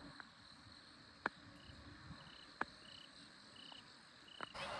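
Faint cricket chirping: short chirps repeating about every half second. Three sharp clicks break in, one about a second in, one past the halfway mark and one near the end.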